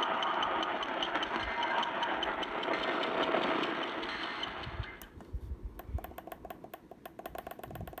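Weather radio receiver hissing with static from a weak, distant station. About five seconds in the static drops away and gives way to a rapid, rhythmic clicking.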